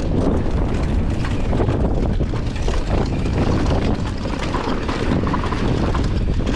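Wind buffeting the microphone over a Commencal Meta AM 29 mountain bike riding down a rough trail: tyres rumbling over dirt and rock, with many quick knocks and rattles from the bike.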